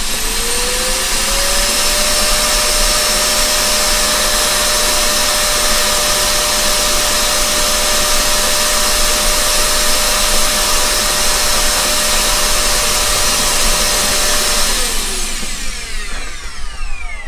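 Vacuum cleaner motor running with a steady whine and rush of air, its hose nozzle held to the centre of a loudspeaker cone to suck dirt out of the voice-coil gap that was making the cone scrape. It spins up as it starts and is switched off near the end, the whine falling away.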